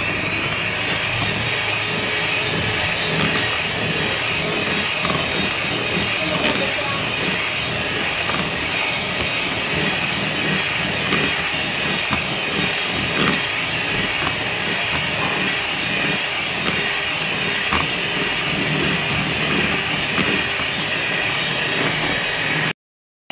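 Electric hand mixer running steadily, its wire beaters whipping cake batter with emulsifier in a plastic bowl until it turns thick. The sound cuts off suddenly near the end.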